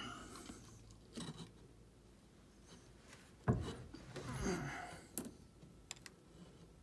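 Handling noises against old subfloor wood: a few short knocks and clicks, the loudest about three and a half seconds in, followed by a second or so of scraping and rustling.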